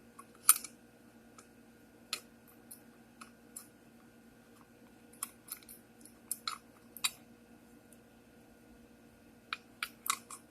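Small metal parts of an antique sewing machine clicking and tapping as a part is worked into place by hand: a dozen or so scattered sharp clicks, the loudest about half a second in, over a faint steady hum.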